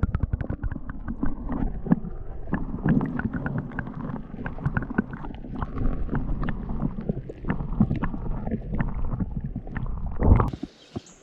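Handling noise on the camera microphone: a low rumble with many irregular rubbing clicks and knocks, cutting off suddenly near the end.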